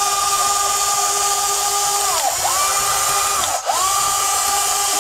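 Small electric gear motor of an RC excavator's cab-rotation drive running with a steady high whine. The whine drops away and winds back up twice, about two seconds in and again about a second and a half later, as the motor stops and restarts.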